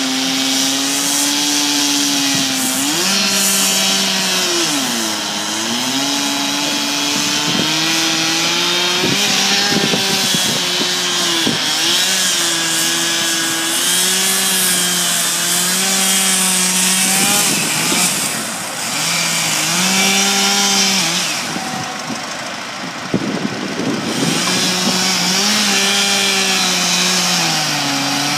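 Chainsaw running at high revs, its pitch sagging and recovering again and again as it bogs in the cut through logs. A few sharp knocks and cracks of wood from the log splitter come in between.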